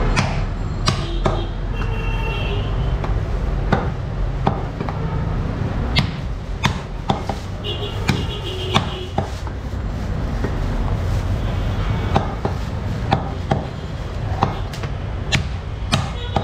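Heavy butcher's cleaver chopping beef on a round wooden tree-trunk chopping block: sharp, irregular chops about one a second, over a steady low background rumble.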